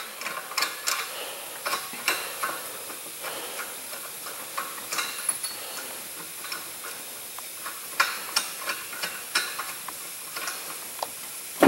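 Scattered small metallic clicks and scrapes as a brass twin-gauge regulator is threaded by hand onto a nitrogen cylinder's valve, in two busier spells, near the start and again about eight seconds in.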